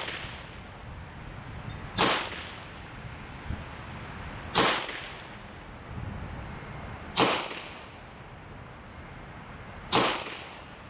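Evanix Viper semi-automatic PCP air pistol firing four shots about two and a half seconds apart, each a sharp report with a short fading tail.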